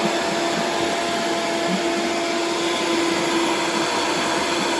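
Vitamix blender running steadily at high speed, blending a thick batter of oats, banana and eggs while the tamper pushes it down into the blades.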